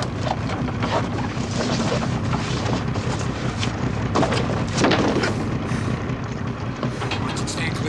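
A fishing boat's engine running steadily under wind and sea noise, with scattered knocks and a louder noisy surge about five seconds in.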